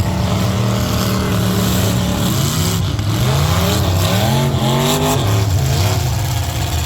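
Several demolition-derby trucks' engines running hard over a steady din, their pitch climbing and dropping again and again as they rev.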